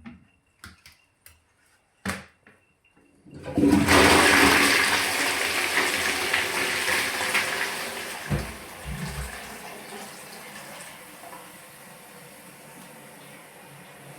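Toilet flushing: a sharp click about two seconds in, then a loud rush of water that fades over several seconds into a quieter steady hiss of running water, with a couple of low thuds about eight seconds in.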